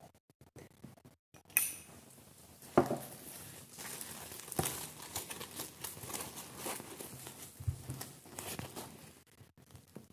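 Dry, flue-cured Virginia tobacco leaves crinkling and rustling as they are handled, an irregular run of crackles with a few sharper cracks.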